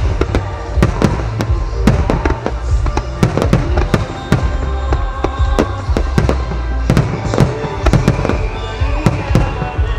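Starmine fireworks: aerial shells bursting in rapid, irregular succession, several sharp bangs a second. Music plays underneath.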